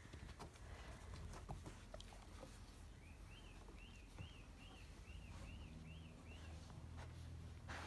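A bird calls faintly in a series of about eight short, arched notes, roughly two a second, from about three seconds in. Before that come a few faint taps of bare feet and hands on wooden decking.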